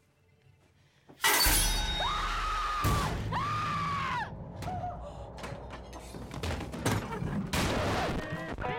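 A sudden loud crash about a second in, then a woman screaming twice in long arching cries, followed by scattered thumps and knocks, with a horror film score.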